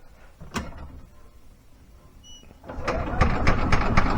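Old Yamaha gas golf cart engine being cranked over by its starter, a fast rhythmic mechanical clatter that starts about three seconds in, after a single click near the start. The engine turns over on a weak battery but does not fire.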